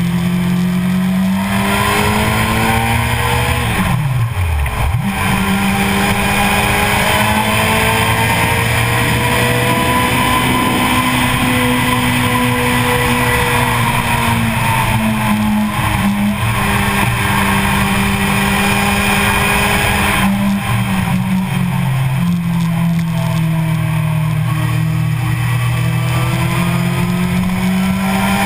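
Sport motorcycle engine running hard at high road speed, its pitch drifting slowly up and down, with a sharp drop and recovery in pitch about four seconds in. A heavy rush of wind noise runs under the engine throughout.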